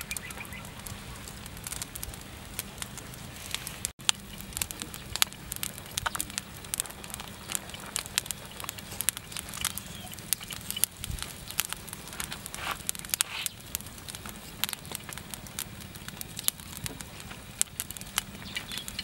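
Charcoal fire crackling and popping under a whole pig roasting on a spit, with irregular sharp pops throughout.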